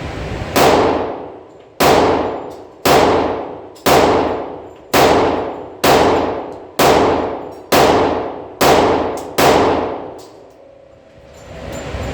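Glock 20 10mm pistol firing a string of ten shots, about one a second, each report loud and sharp with a long echoing decay.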